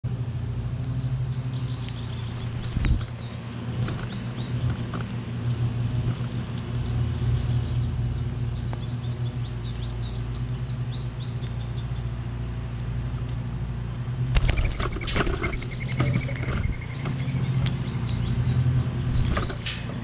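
Small birds chirping in rapid runs of short high notes, once around two seconds in and again from about eight to twelve seconds, over a steady low hum. A few sharp knocks come about three seconds in, around fifteen seconds and near the end.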